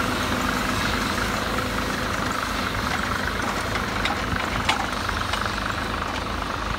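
International Harvester 7288 2+2 tractor's diesel engine running steadily under load as it pulls a moldboard plow, with a few faint clicks.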